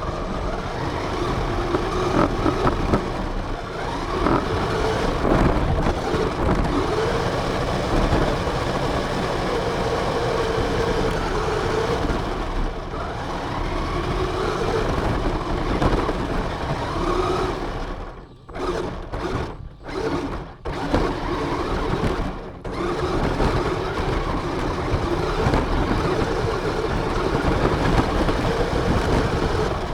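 RC car driving, heard from its onboard camera: a motor whine that rises and falls with the throttle over a constant rumble and rattle of the wheels and chassis on the ground. It cuts out briefly several times about two-thirds of the way through, then carries on.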